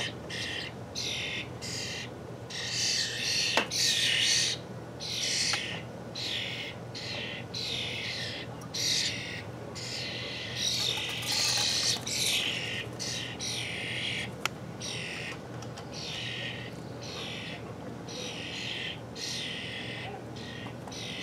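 Baby European starlings calling noisily: a steady stream of short, harsh, hissy calls, more than one a second, repeated over and over.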